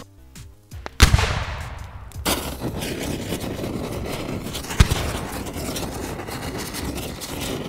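Sound-effect blast about a second in, then a steady crackling fire full of rapid pops, with one sharper bang near five seconds in.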